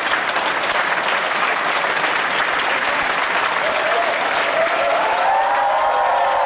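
A large theatre audience clapping steadily at a curtain call.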